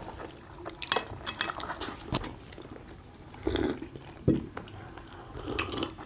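People chewing steamed momo dumplings dipped in sauce, with slurps around the middle and near the end and a few sharp clicks of chopsticks against steel plates.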